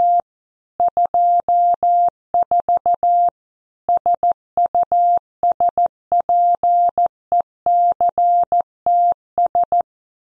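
Computer-generated Morse code at 14 words per minute: a single steady beep tone keyed on and off in dits and dahs, spelling out a news headline for copy practice. It stops just before the end.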